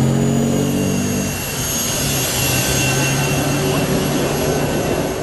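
1963 Chrysler Turbine car's gas turbine engine running as the car drives slowly past, a steady high whine over a lower hum that fades about a second in.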